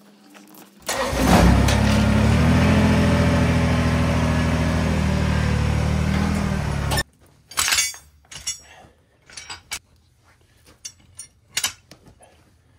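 An engine comes in suddenly about a second in, runs loudly and steadily, and stops abruptly about seven seconds in. Scattered clicks and knocks follow.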